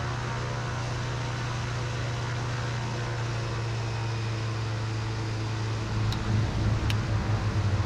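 Rotax-powered light aircraft's engine and propeller running at low taxi power, a steady low drone heard from inside the cockpit. About six seconds in the drone turns uneven and slightly louder, with two faint clicks.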